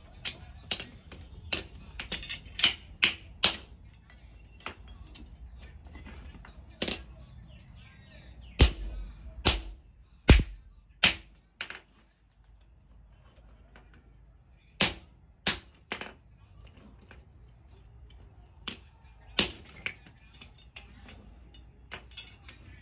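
Hand hammer striking a small steel workpiece held in tongs on a steel post anvil. Irregular sharp metallic blows with short ringing: a quick run at the start, the loudest strikes near the middle, then scattered single blows.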